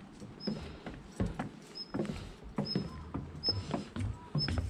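Footsteps at a steady walking pace, about one step every three-quarters of a second, with a short high squeak at most steps.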